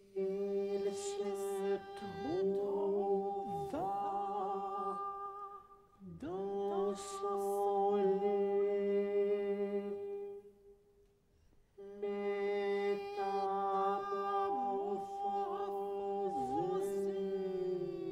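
Countertenor voice singing long, held notes in three slow phrases, the French words 'il se trouva dans son lit, métamorphosé en un monstrueux', with several brief downward slides in pitch.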